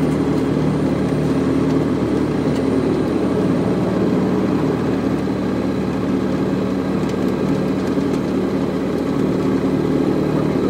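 Titan Tornado Super Stretch light aircraft's engine running steadily, heard from inside the cabin during the rollout after landing, with a steady rush of noise beneath it.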